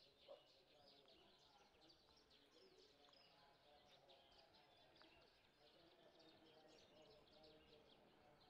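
Faint outdoor ambience of small birds chirping, many quick high chirps in a steady chorus.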